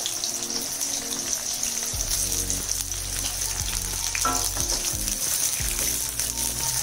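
Diced white brinjal frying in hot oil in an aluminium kadai, a steady sizzle after the pieces are tipped in, with a wooden spatula stirring it near the end.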